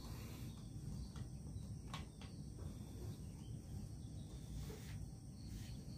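Faint scattered taps of young chickens pecking grain feed from a wooden trough, over a steady low background rumble and a thin high hum.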